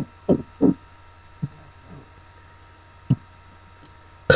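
A woman trying to bring up a burp: a few short, soft sounds, then a very loud burp breaks out right at the end.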